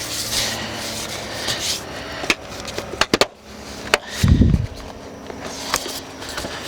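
Plastic interior car trim being pried and worked loose by hand, giving scattered sharp clicks and snaps, a quick cluster of them about three seconds in, with rubbing between. A dull thump a little after four seconds is the loudest sound.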